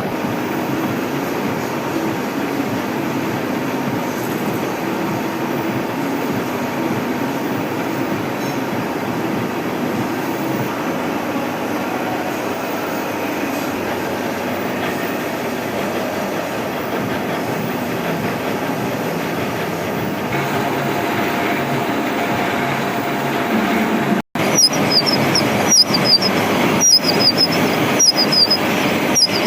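Milling machine running steadily as it cuts a gear shaft, a steady mechanical noise with a low hum. About four-fifths of the way through the sound drops out for an instant, then a run of sharp clicks with high squeaks comes roughly twice a second.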